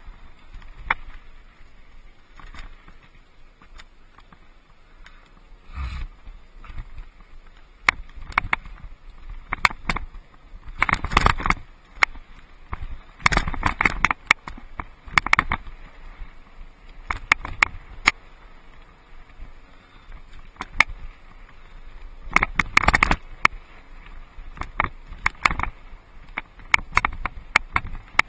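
Mountain bike rattling and clattering over rocky dirt singletrack, with a stream of sharp knocks and clicks from the frame and components over low rumble. Several bursts of heavy clatter stand out, the loudest about 11, 13 and 23 seconds in, where the ground gets rougher.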